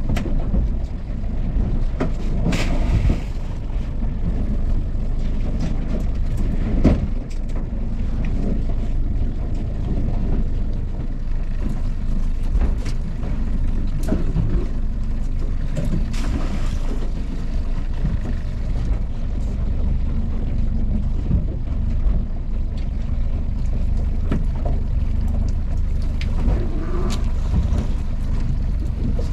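Small boat's outboard motor running steadily, with wind buffeting the microphone and a few sharp knocks as the pot gear is handled on deck, the loudest about seven seconds in.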